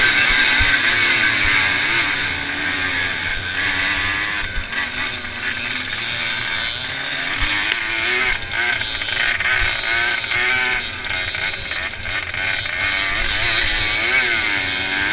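Off-road motorcycle engine revving hard under the rider, its pitch rising and dropping again and again over bumps and gear changes. Other racing motorcycles are close by, and it is heard from the rider's helmet.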